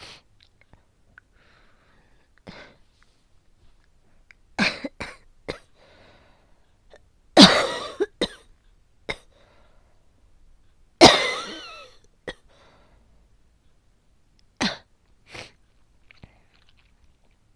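Asthmatic coughing fit: a dozen or so separate coughs, some single and some in quick runs of two or three, with quiet gaps between. The two loudest come about midway, the second drawn out for about a second.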